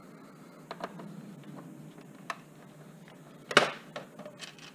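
Screwdriver working a screw inside an Epson LCD projector's plastic case: a few small scattered clicks and taps, with one sharper click about three and a half seconds in.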